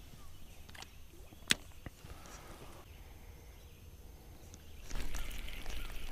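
Spinning rod and reel being handled and cast: a single sharp click about a second and a half in, a few faint ticks, and rustling handling noise near the end.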